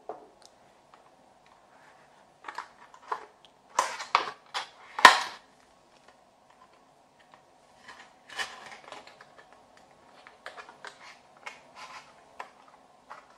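Small paperboard box being handled and opened by hand: scattered clicks, taps and rustles of card and thin plastic packaging, with the sharpest snap about five seconds in.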